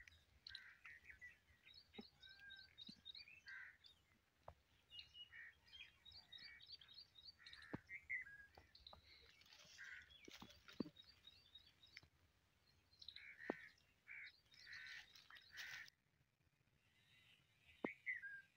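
Faint chirping and twittering of small birds, with several short runs of quick repeated high notes and a few sharp ticks; it grows quieter near the end.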